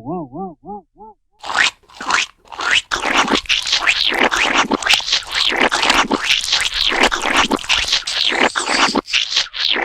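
A wobbling, warbling pitched sound effect dies away in the first second. A long run of rapid, irregular scratching and scraping follows, lasting several seconds before breaking off near the end.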